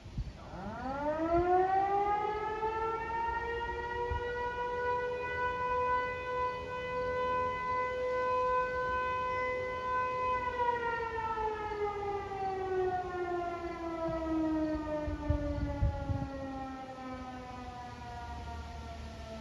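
Federal Signal Eclipse 8 electromechanical siren sounding the noon blast. It winds up over a few seconds to a steady tone, holds it for about seven seconds, then winds slowly down and is still falling at the end. A few low thumps come near the end.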